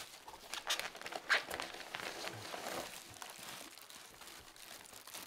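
Plastic bubble wrap and packing material crinkling and rustling as it is handled, in short irregular crackles, the loudest a little over a second in.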